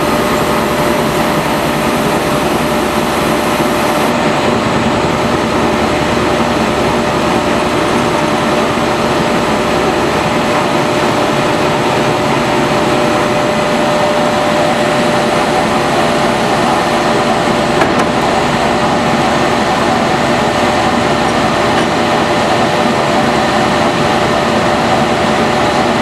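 MSI horizontal baler and shredder plant running under electric power: a loud, steady mechanical drone with a constant hum. The baler's hydraulic power pack is working the needle rack and wire twisters of the auto-tie.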